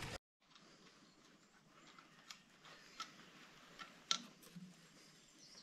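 A few light clicks and taps of hands working loose the fuel filter on a David Brown 990 tractor's diesel engine, over a faint hiss. The sharpest click comes about four seconds in.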